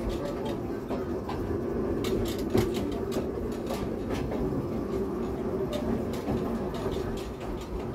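Narrow-gauge railway carriage running along the track: a steady rumble with irregular clicks and rattles from the wheels and coach.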